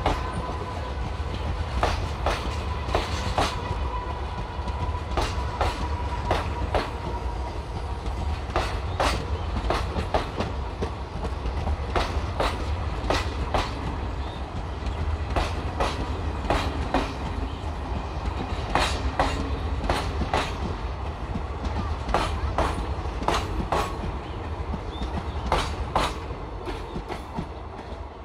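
Express train of Indian Railways passenger coaches rolling past close by: a steady low rumble with the irregular clickety-clack of wheels over rail joints, and a faint whine for the first several seconds. It grows quieter near the end as the last coaches pass.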